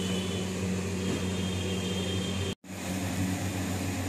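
Steady mechanical hum of a household appliance, with a faint high whine over it; the sound drops out for an instant about two and a half seconds in, then the hum resumes.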